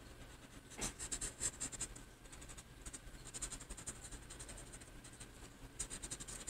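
Paper blending stump (tortillon) scrubbed back and forth over a paper drawing tile to blend the shading. It makes a faint, dry scratching that comes in several bursts of rapid strokes.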